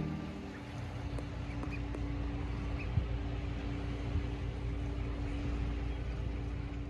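Steady outdoor ambience: a low rumble and hiss with a faint steady hum under it, and a couple of faint high chirps about two seconds in.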